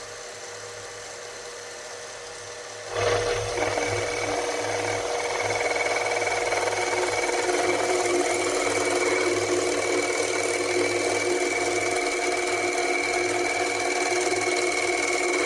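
Small benchtop metal lathe running with an aluminium beer can spinning in the chuck. About three seconds in, the cutting tool bites into the can, and a steady scraping cut with a high whine goes on as the tool turns the paint off the can's surface.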